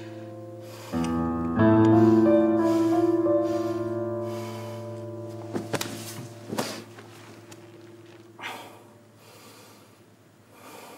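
Sustained background music chords that swell about a second in and then slowly fade, with a man's heavy, distressed breathing and two soft knocks around the middle.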